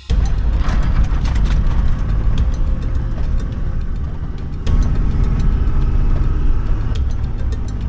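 Four-wheel drive (a Troop Carrier) driving along: a loud steady rumble of engine and road, with frequent light clicks and rattles over it. The rumble steps up suddenly a little over halfway through.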